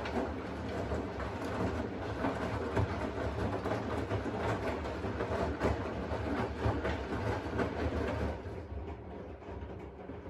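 Washing machine running: a steady low rumble of the drum with rapid, irregular clicking and knocking over it, easing off near the end.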